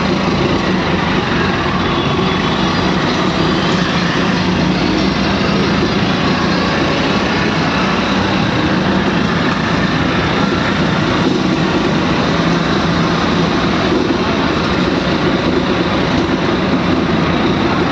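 Steady engine and road noise of a moving vehicle on wet streets, an even hum with tyre hiss and no breaks.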